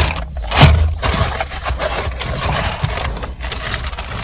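Rustling and crackling of plastic and wiring being handled, with a dull thump about half a second in.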